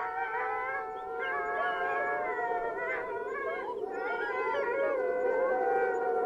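A chorus of several overlapping howls, wavering and gliding up and down in pitch, over a steady low drone.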